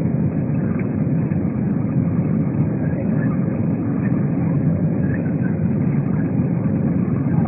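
Airbus A320 in flight: a steady low drone of its engines and the rushing airflow, with a faint steady hum above it.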